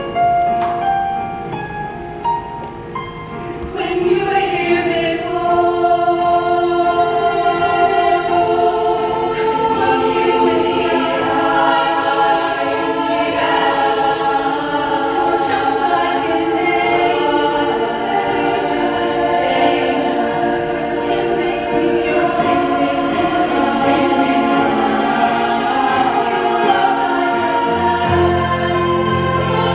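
Women's choir singing in harmony with instrumental accompaniment. The voices come in about four seconds in after a few single accompanying notes, and low bass notes join near the end.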